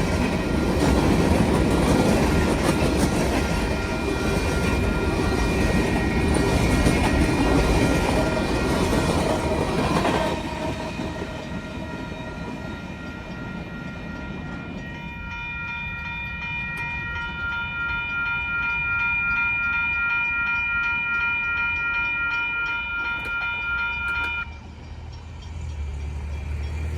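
Train cars rolling through a railroad crossing with wheels clattering over the rails while the crossing's warning bell rings. The train noise fades about ten seconds in, the bell carries on alone, and it stops abruptly near the end.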